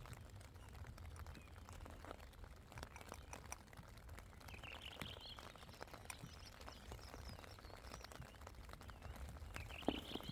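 Faint bird chirps, a short phrase about halfway through and another near the end, over scattered light taps and ticks.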